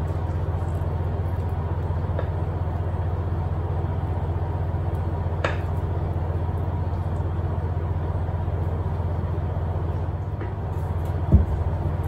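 A steady low hum, with a few faint clicks of a spatula against a glass bowl as brownie batter is scraped out, and a short low knock near the end.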